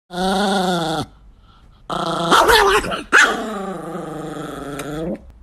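Chihuahua growling and snarling in three long drawn-out bouts, the last and longest about two seconds.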